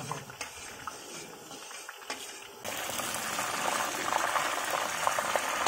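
Besan batter strands (jhuri bhaja) deep-frying in a wok of hot oil: steady sizzling and bubbling crackle, much louder from about two and a half seconds in.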